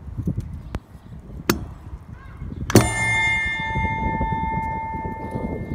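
A bell inside a stainless steel sphere sculpture, one of its two bells tuned a comma apart, struck once about three seconds in when its push button is pressed and ringing on in a long steady tone. A few faint clicks come before the strike.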